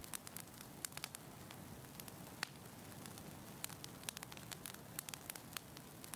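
Faint crackling of a fire sound effect: irregular sharp crackles, several a second, over a low hiss.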